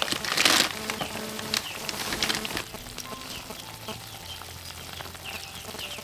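Dense crackling and sizzling noise with many irregular small clicks, loudest in the first second, over faint steady held tones.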